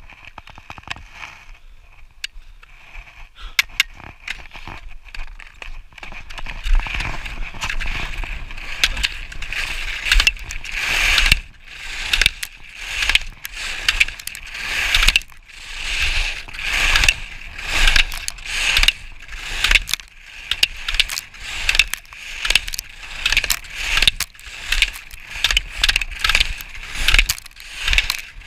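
Atomic race skis carving and scraping on firm, corduroyed snow through quick slalom turns: a rising rasp of the edges about once a second, with low wind rumble on a chest-mounted microphone. The first few seconds, at the start, are quieter with scattered clicks and taps.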